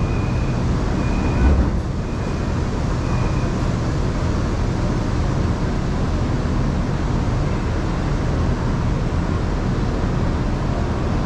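Shanghai Metro Line 2 train running at speed: a steady rumble of wheels on rail with rushing noise, and one low thump about a second and a half in. Four short high beeps sound about a second apart in the first few seconds.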